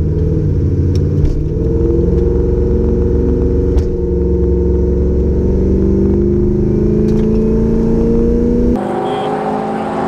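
Drag car's engine under hard acceleration, heard from inside the cabin: a loud, deep running note whose pitch climbs slowly and steadily for about seven seconds, with a few sharp clicks along the way. It changes abruptly near the end.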